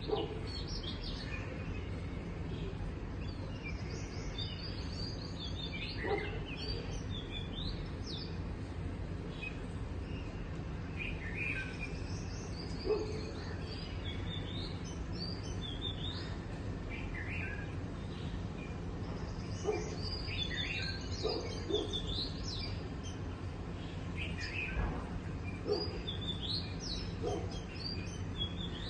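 Small birds chirping in short, scattered clusters of high notes, over a steady low background noise.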